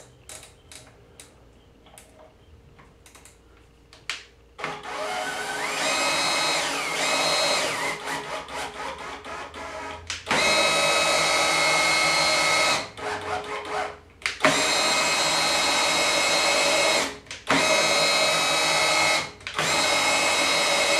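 Cordless drill spinning the lead screw of a DIY CNC router's Z axis, driving the Z carriage along its travel. After a few quiet clicks the drill runs several times for a few seconds each, with short stops between. Its whine rises and falls in pitch in the first run and holds steady in the later ones.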